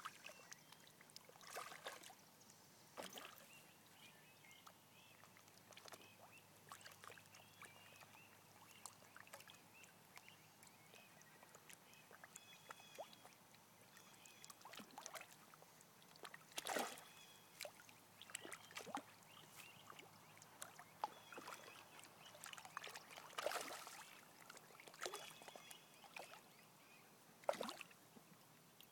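Mostly quiet, broken by occasional faint water splashes and sloshes from a dog wading in shallow pond water after catfish.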